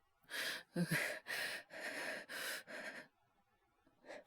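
A man's quick, shaky breathing: about seven short breaths in three seconds, with a brief voiced catch near the start. It is acted as a feverish man shivering with chills.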